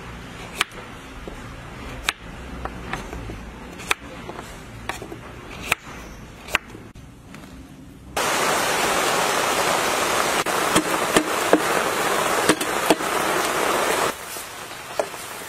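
Knife chopping carrot on a wooden cutting board: sharp single chops a second or two apart. About eight seconds in, a loud steady hiss starts abruptly and cuts off about six seconds later.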